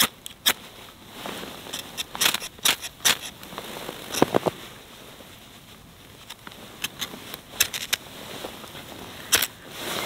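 Victorinox FireAnt mini ferro rod struck with a Swiss Army knife's saw blade: irregular sharp scraping strikes come in short clusters, throwing sparks onto snow-soaked Helix tinder that does not catch.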